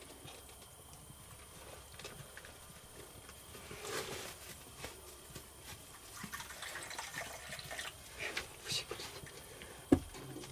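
Tea trickling from a metal teapot into a cup amid quiet handling noise, then a single sharp knock near the end.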